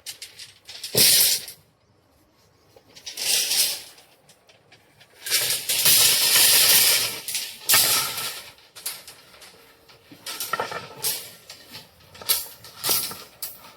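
Electric arc welding crackling and hissing in irregular bursts, the longest about two seconds, with short clicks in between.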